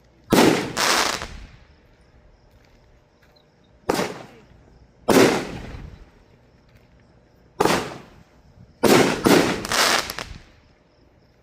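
Fireworks going off: about eight loud, sharp bangs, each trailing off in a fading echo. There are two bangs early, two around four to five seconds in, one near eight seconds, and a quick cluster of three near the end.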